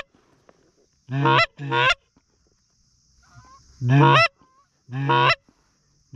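Hand-blown Canada goose call sounding loud, close honks with a break up in pitch: a quick double honk about a second in, then single honks about four and five seconds in, calling to an incoming flock of geese.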